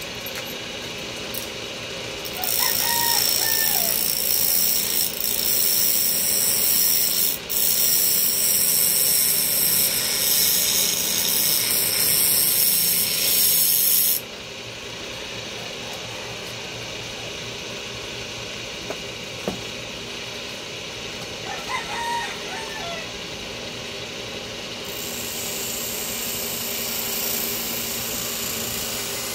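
A rooster crows twice, about two seconds in and again past twenty seconds, over workshop machinery. A loud, hissy power tool runs for about twelve seconds and cuts off suddenly, leaving a quieter steady machine hum.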